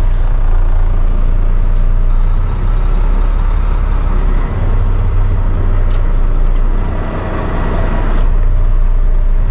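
Semi-truck's diesel engine running at low speed while the truck reverses, heard from inside the cab as a steady low engine note. A brief click comes about six seconds in.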